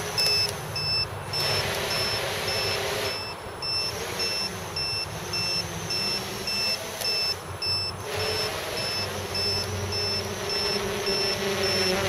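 Electric motors and propellers of an Armattan CNC 258 quadcopter buzzing as it flies high overhead, the pitch shifting with throttle. Over it, an electronic beeper sounds a short high tone about two to three times a second.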